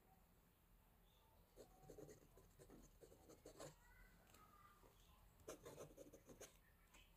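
Left oblique fountain pen nib scratching faintly across notebook paper while writing, in two short bursts of strokes: one starting about a second and a half in, the other near the end.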